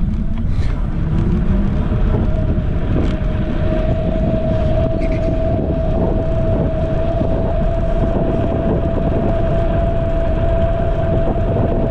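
Caroma P5 electric scooter riding at speed: a steady motor whine that rises a little at first and then holds, over heavy wind and road rumble.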